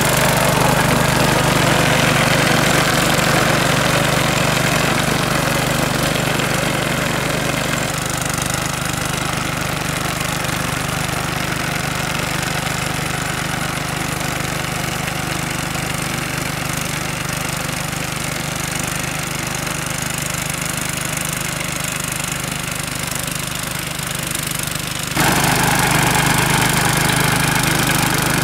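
Small petrol engine of a Rotakt walk-behind mower running steadily under load as it cuts tall grass. It turns quieter about eight seconds in and louder again near the end.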